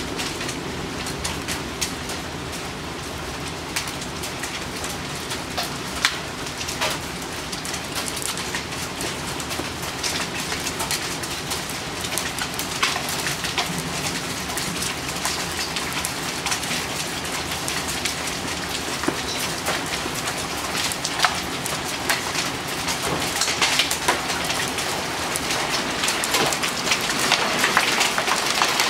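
Steady downpour of rain and hail, with scattered sharp hailstone hits that grow denser and louder toward the end.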